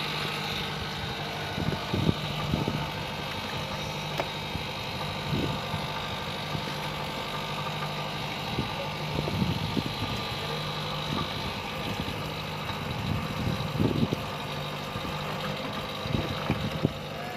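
Small boat engine running steadily at idle, with scattered short knocks.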